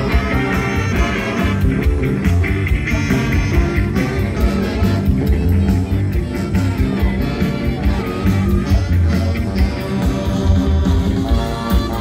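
A youth funk orchestra playing live: saxophones and trombones over a steady beat.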